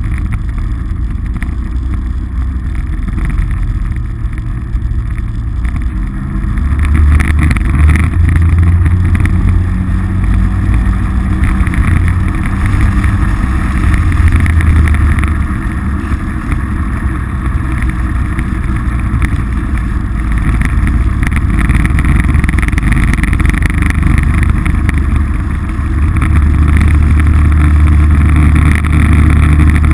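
Polaris RZR side-by-side's engine running while under way, a low, steady drone that grows louder about a quarter of the way in and again near the end.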